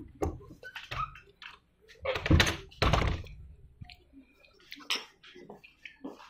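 Handling noise from a phone being moved about, with scattered knocks and rustles; the two loudest bumps come about two and three seconds in.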